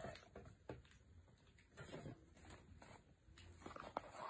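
Faint rustling and a few light taps and clicks of cardboard boxes and paper packaging being handled during unpacking.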